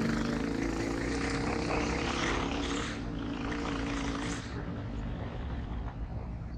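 Motorcycle engine running steadily under way, with a rushing noise over it that fades after about four seconds.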